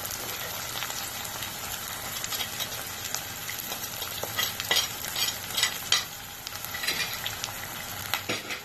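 Chopped onion frying in hot oil in an aluminium pot: a steady sizzle with scattered sharp crackles, most of them from about four seconds in.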